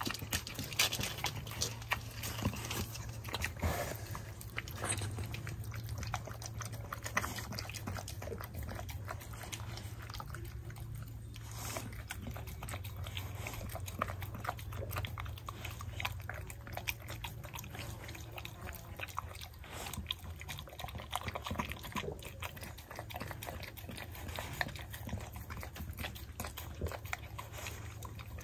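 Chow chow puppy eating a plate of creamy tagliatelle: wet chewing and lapping of the pasta, with many small irregular clicks of jaws and teeth.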